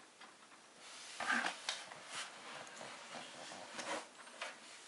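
Hands handling a steel desktop computer case at its rear expansion-slot brackets: a scatter of short scraping, rubbing and clicking sounds, the loudest about a second and a half in.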